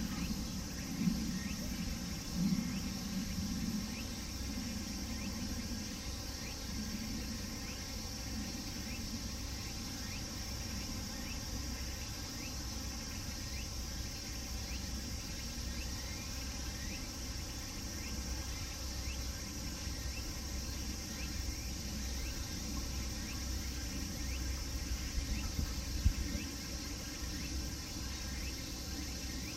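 Cicadas singing in a steady high-pitched chorus, over a low rumble, with a few brief low thumps, the sharpest near the end.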